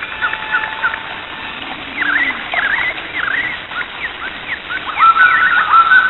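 Several birds chirping and calling at once: many short slurred notes over a steady hiss, growing busier and louder about five seconds in.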